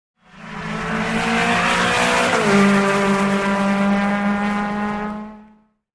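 Race-car engine sound effect for a logo intro: an engine held at high revs with a hiss of noise over it, its pitch stepping down about two and a half seconds in. It fades in and fades out.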